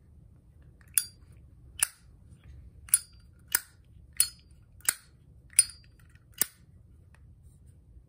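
Solid-copper Zippo lighter's hinged lid flicked open and snapped shut four times in a row: eight sharp metallic clicks, alternating a bright, briefly ringing click with a duller clack.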